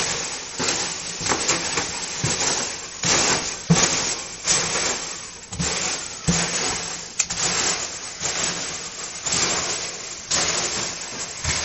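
Hands rummaging through loose foam packing peanuts in a cardboard box: continuous rustling with frequent small knocks against the cardboard.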